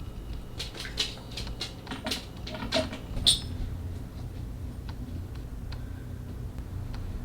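A quick run of small sharp clicks and taps, as of cosmetics packaging and product cases being handled, with the loudest click about three seconds in. A steady low hum lies underneath.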